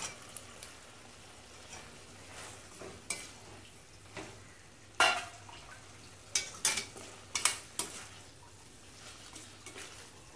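Boiled mutton pieces being stirred and sautéed in a stainless steel kadai of fried onion and tomato over a steady sizzle, the spatula scraping and clacking against the pan now and then, loudest about halfway.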